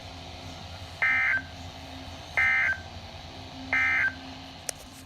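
Emergency Alert System end-of-message code from NOAA Weather Radio: three short, identical bursts of warbling digital data tones, about a second and a half apart, signalling that the broadcast warning has ended.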